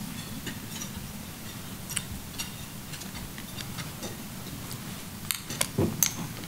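Sparse clinks and ticks of cutlery and dishes from a room of diners at lunch, over a steady low hum, with a few sharper clicks near the end.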